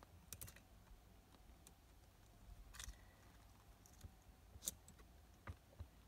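Faint light metallic clicks and rattles of a saw chain being handled and worked onto a chainsaw's guide bar: a handful of sharp ticks, the loudest about three-quarters of the way through.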